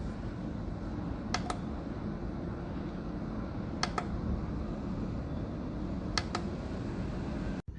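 Rechargeable USB desk circulator fan running, its airflow making a steady rumbling rush, with three pairs of quick double clicks about every two and a half seconds.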